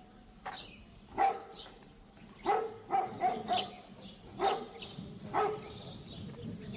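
A dog barking repeatedly, about seven short barks at irregular intervals, some coming in quick pairs.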